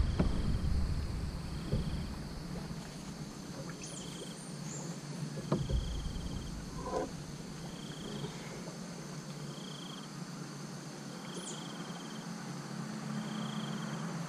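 An insect's short high chirp repeating about every two seconds, over a steady low hum, with a few soft knocks near the start and around the middle.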